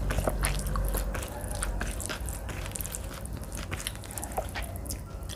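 Close-miked chewing of a mouthful of rice and mashed vegetable bharta: a steady run of wet clicks and smacks, louder in the first second or so.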